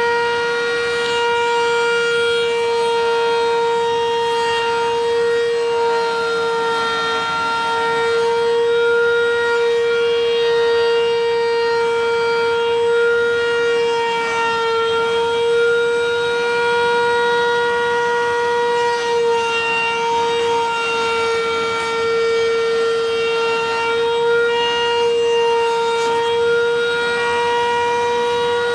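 Table-mounted router running at a constant speed with a steady whine, as the edge of a wooden toy car body is fed around the spinning bit.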